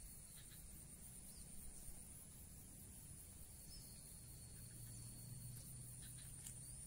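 Faint outdoor ambience: a steady, high-pitched insect drone with a fainter second insect tone coming and going, over a low rumble.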